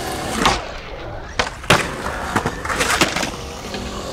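Skateboard wheels rolling over concrete, with several sharp clacks of the board striking the ground.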